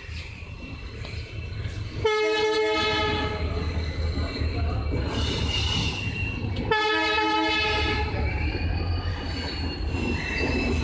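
WDP4D diesel locomotive sounding its horn twice, once about two seconds in for about a second and a half and again about seven seconds in, over the steady low rumble of the train rolling in. A thin high squeal, likely from the wheels, is heard between and after the blasts.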